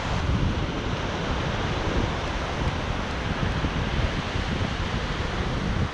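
Ocean surf washing onto a sandy beach, mixed with steady wind buffeting the microphone.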